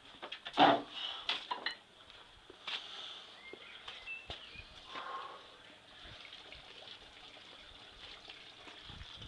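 Cast-iron kettlebells and weight plates clanking against each other and the metal tray of a loaded wheelbarrow: one loud clank about half a second in and a few more over the next second, then only light knocks.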